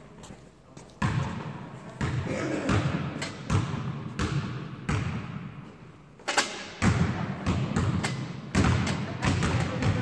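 Repeated thumps and knocks, irregular, about one every half second to a second, each echoing briefly around a large gym hall.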